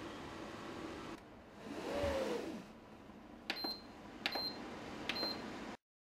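Dehumidifier fan running steadily, then a brief whoosh, followed by three short electronic beeps about a second apart. The sound cuts off suddenly near the end.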